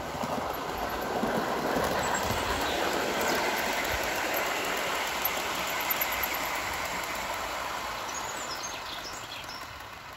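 O gauge model Class 37 diesel and a rake of loaded MGR coal hopper wagons rolling along the track with a steady rumbling run. It grows louder over the first couple of seconds as the wagons pass close by, then fades near the end as the train moves away.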